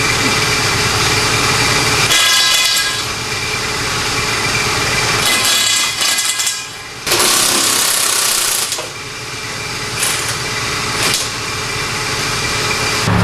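Pneumatic impact wrench running in long bursts on bolts under a car, with a short break about six and a half seconds in.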